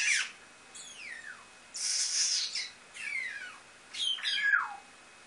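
African grey parrot vocalising: three whistles that each slide down in pitch, mixed with two breathy, hissing bursts, one at the start and one about two seconds in.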